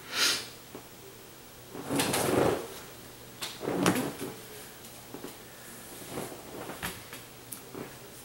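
Sleeved trading cards being handled on a playmat: short sliding rustles, the loudest about two seconds in and another near four seconds, then light taps and clicks as cards are set down.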